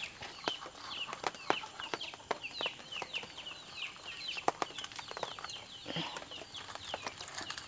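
Chicks peeping in short, high, falling calls, several a second, with light clicks and taps as crisp fried madakku pastries are set down on a steel plate.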